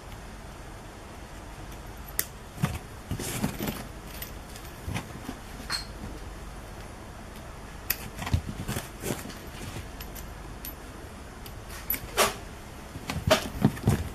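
Metal 4-pin aviation cable connectors being handled and screwed together, with scattered clicks and rattles of the threaded couplings and the cables, starting about two seconds in.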